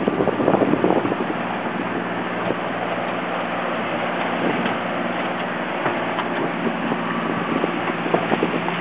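Fishing boat's engine running steadily under way, a low hum, with wind buffeting the microphone and water rushing past the hull. A few knocks in the first second.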